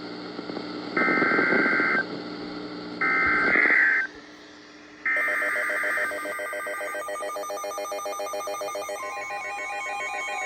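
Three one-second bursts of warbling EAS digital data tones, one second apart, the end-of-message signal that closes an alert. They are followed by a steady, pulsing pattern of electronic tones.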